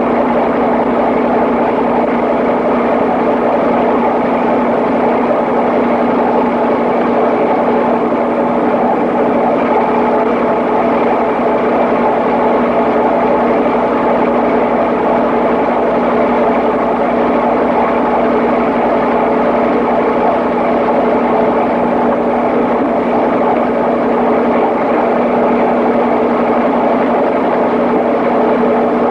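Papp noble-gas engine running at a steady speed on test: an even mechanical hum with a few fixed tones that does not rise or fall.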